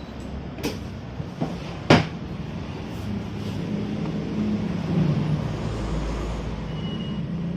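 Sharp clicks of a screwdriver and hands on the plastic case of an Asus X550JX laptop being taken apart, three in the first two seconds, the loudest about two seconds in. From about three seconds in a steady low hum runs underneath.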